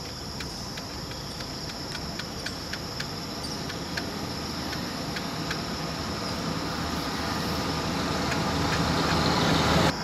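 Steady high drone of forest insects with a run of sharp ticks in the first half, under a rumbling noise that grows steadily louder and stops abruptly at the end.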